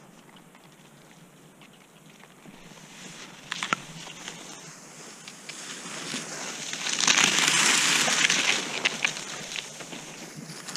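Cross-country skis sliding on a groomed snow track, with a few sharp clicks of poles or ski bindings. The hiss of the skis on snow swells loud about seven seconds in and eases off after a second or two.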